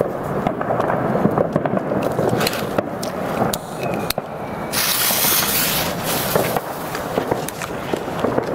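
Bellabomba firecracker's pre-burner fuse catching and hissing: a sudden bright spray of hiss about five seconds in that fades over a second or two, over steady rustling handling noise.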